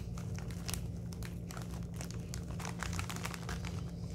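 Plastic snack bag of cheese puffs crinkling and crackling as it is handled, in many short, irregular crackles.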